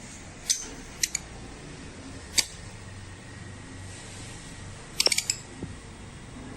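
Sharp, brief clicks and clinks: a few single ones, then a quick run of about four about five seconds in.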